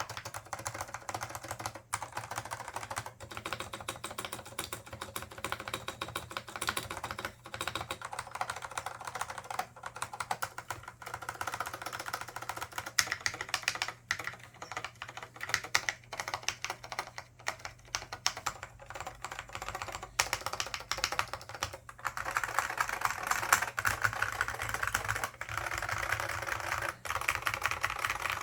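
Continuous fast typing on a Dell AT101 keyboard with Alps SKCM Black switches, lightly lubed, under Alps doubleshot keycaps: a dense run of key clicks with brief pauses now and then.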